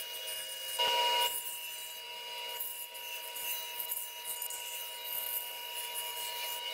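Bandsaw running and cutting through a thick wooden board: a steady tonal whine from the machine under the hiss and rasp of the blade in the wood, with a brief louder stretch of cutting about a second in.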